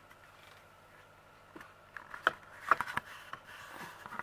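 Quiet room tone, then from about one and a half seconds in a cluster of small clicks and knocks from objects being handled and moved about.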